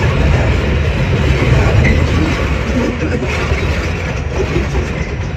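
R68 subway car running at speed, heard from inside the car: a steady low rumble of the wheels on the rails.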